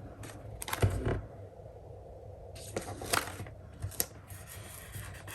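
Paper and stickers being handled on a craft table: irregular rustling with a few sharp clicks and taps, the loudest cluster about a second in.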